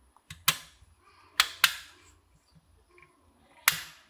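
Bonnet and doors of a 1/24 scale die-cast Rolls-Royce Phantom model being pressed shut by hand. Four sharp clicking snaps are heard, two of them in quick succession about a second and a half in.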